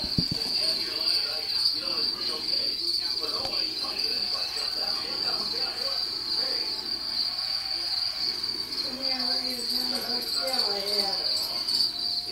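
Steady high-pitched insect trill that runs on without a break.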